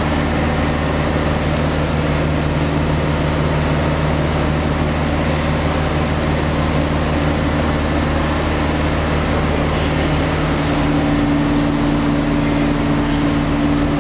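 Diesel truck engine idling steadily: an even, low engine hum. A higher tone in the hum grows a little louder about ten seconds in.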